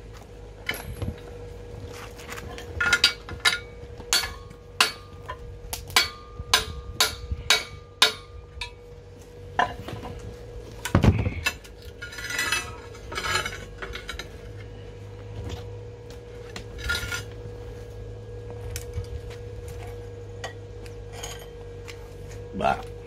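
Stainless steel parts clinking and knocking together as they are handled and fitted, with a quick run of sharp metallic clinks, some briefly ringing, between about three and nine seconds in, then scattered knocks. A steady hum runs underneath.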